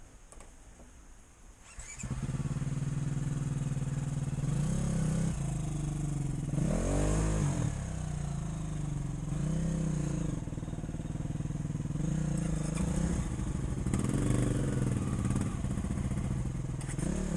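Off-road vehicle engine running and revving over and over, its pitch rising and falling with each blip of the throttle. It comes in abruptly about two seconds in, after a quieter start.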